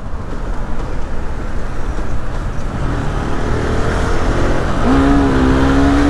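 Motorcycle riding on the road: wind and road rush on the microphone over a low rumble, with the engine's steady note coming up in the second half.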